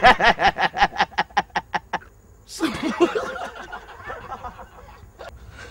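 Men laughing heartily: a fast, even run of "ha-ha-ha" at about seven a second for the first two seconds. After a short pause a fresh burst of laughter and a word follow, trailing off.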